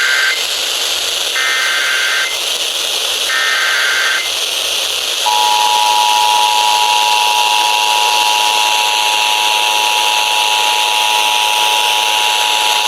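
Emergency Alert System broadcast over weather radio with a steady static hiss: the coded SAME header, short warbling data bursts about a second long and two seconds apart, then about five seconds in the steady two-tone attention signal, which holds. Together they announce a National Weather Service severe thunderstorm warning.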